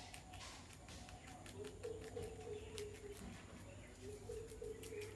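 Pet rabbit chewing fresh leaves: a quick, irregular run of small crunching clicks. A low held call sounds twice in the background, each lasting about a second.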